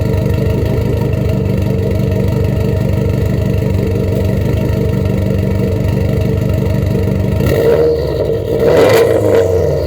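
2004 Subaru WRX turbocharged flat-four idling with a steady pulsing beat through a straight-piped exhaust, catless from uppipe to downpipe and with no resonators. About three-quarters of the way in it is revved once, swelling louder, then drops back toward idle.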